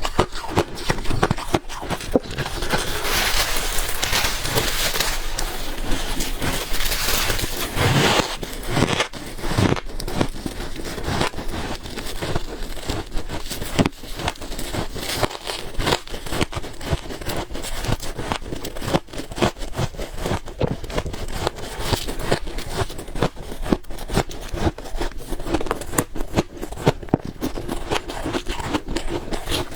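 Close-up crunching and crackling of freezer ice being bitten and chewed, a dense run of sharp cracks and crackles throughout, thickest a few seconds in.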